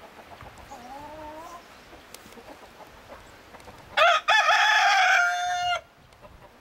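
A rooster crowing about four seconds in: a short first note, then one long held note of well over a second. A fainter rising call comes about a second in.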